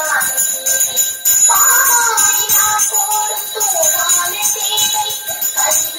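Small brass puja handbell rung continuously, a steady high ringing, with a singing voice over it.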